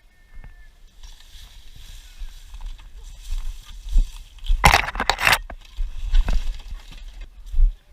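Rustling and crunching in dry forest litter, loudest in a crackly burst about four and a half seconds in, over a low rumble.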